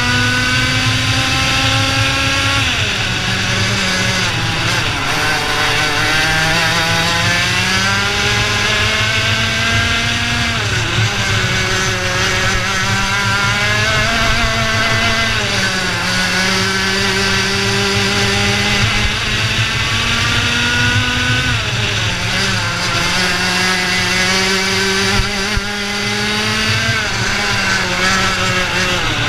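IAME Leopard 125 cc two-stroke kart engine at racing speed, heard from on board: its pitch climbs steadily along each straight and drops sharply when the driver brakes for a corner, about six times. Wind rushes steadily over the microphone.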